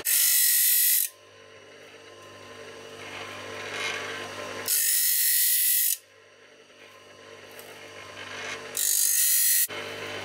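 Small saw-blade sharpening grinder touching carbide saw teeth to its spinning diamond wheel: three bright grinding bursts of about a second each, roughly four seconds apart, with the grinder motor's low hum between them.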